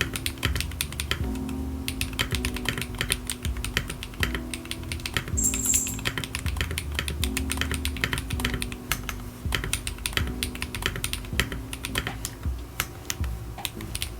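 Continuous, fast, irregular typing on a custom mechanical keyboard, its keys clacking rapidly.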